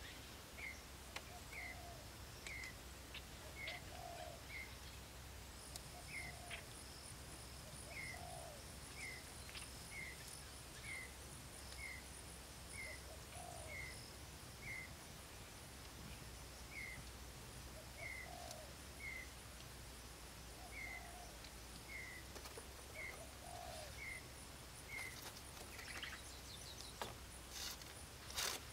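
Outdoor birdsong: one bird gives a short high chirp about once a second, and now and then a lower call sounds under it. From about five seconds in there is also a steady high-pitched buzz. A couple of sharp clicks come near the end.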